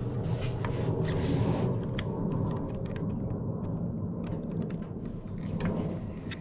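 Scattered sharp clicks and light knocks, as of small parts and tools being handled, over a steady low machine hum.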